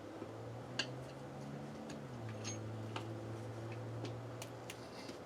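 A few sparse metal clicks and taps of steel tire irons against a motorcycle wheel rim as the front tire's bead is pried off, over a low steady hum that drops slightly in pitch about two seconds in.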